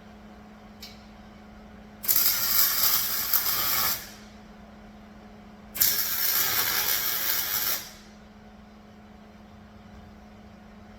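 Two tack welds with a welder on steel bars, each a loud crackling sizzle lasting about two seconds: one about two seconds in, one about six seconds in.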